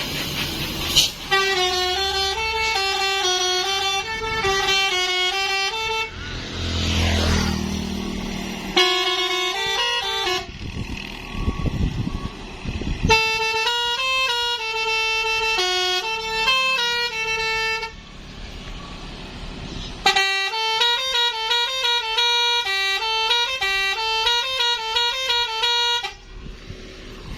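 Telolet horn fitted with an original Basuri module, being tested and playing its multi-tone melody: quick runs of stepping notes in four bursts with short breaks between.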